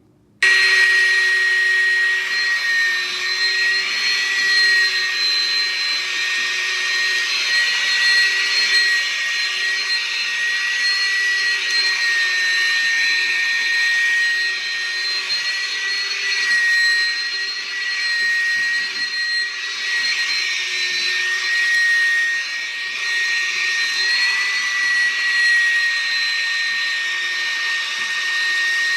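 Oreck Commercial XL bagged upright vacuum cleaner running: its motor comes on abruptly about half a second in and holds a loud, steady high whine over a rushing hiss, the pitch wavering only slightly.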